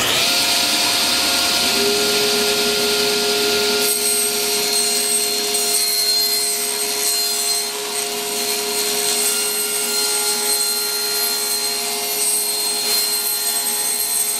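Table saw switched on and cutting through a sheet of thin wood paneling: a sudden start, then a steady loud whine of motor and blade with the hiss of the cut.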